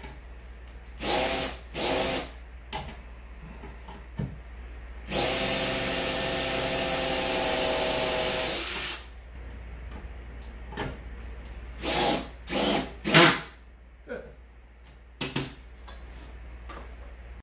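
Cordless drill boring a hole into a wall stud through a steel mounting plate and driving a screw: two short bursts, a steady run of about four seconds, then three short bursts, the last one the loudest.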